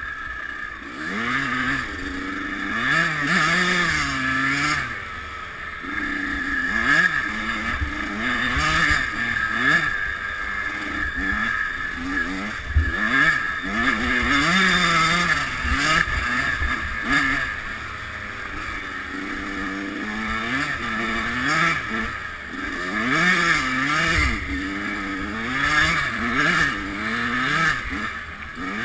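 Kawasaki KX100 two-stroke dirt bike engine, heard from the rider's helmet, revving up and down over and over as the throttle opens and closes. A couple of low thumps come through, one about halfway and one near the end.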